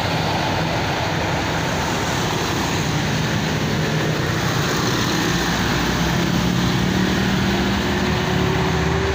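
Large bus engine running with road noise from passing traffic, steady throughout, with a faint tone slowly rising in pitch in the second half.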